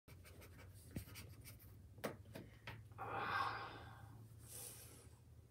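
Faint pencil writing on paper at a desk, with a few small taps and clicks and a louder rush of noise about three seconds in, over a low room hum.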